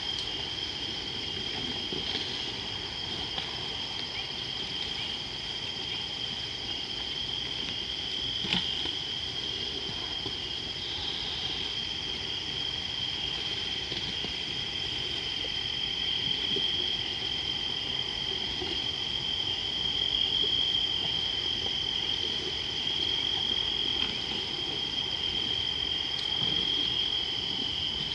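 Night insect chorus: a steady, high, continuous trill that never pauses, over a faint low hiss, with a single short click about eight and a half seconds in.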